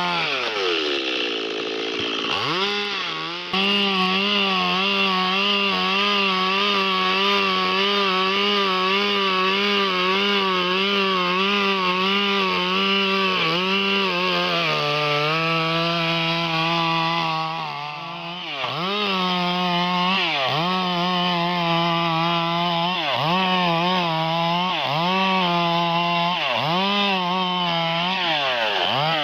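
Stihl MS 382 two-stroke chainsaw sawing wood into planks, running at high revs with its pitch wavering under load. It drops back to a low rev near the start and again at the end, and in the second half the revs dip and recover about once a second.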